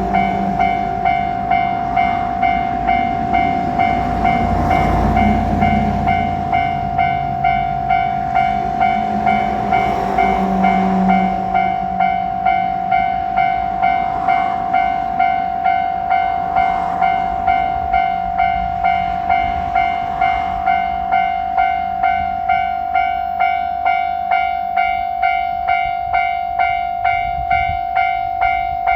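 Japanese railroad-crossing alarm ringing its steady electronic 'kan-kan' tone at about two strikes a second, while a JR Shikoku 1000 series diesel railcar passes over the crossing. The railcar's engine and wheels are loudest about five seconds in, again around ten seconds, and fade out by about twenty seconds in, leaving the alarm alone.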